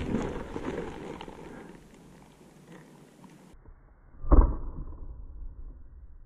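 Rustling and small clicks of movement, fading over the first few seconds. About four seconds in comes a single sharp shot from a Novritch SSG24 spring-powered bolt-action airsoft sniper rifle, with a short ringing tail.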